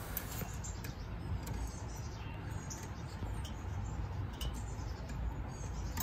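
Steady low outdoor rumble with a few faint bird chirps and some light clicks.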